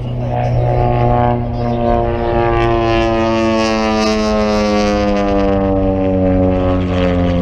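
Propeller airplane flying past, its engine drone sinking slowly and steadily in pitch as it goes by.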